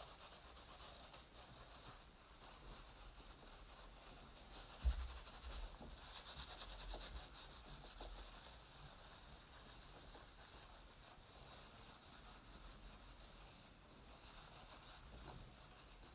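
Faint, steady rubbing of wool being felted and compacted by hand, swelling for a moment about six seconds in, with one soft low thump about five seconds in.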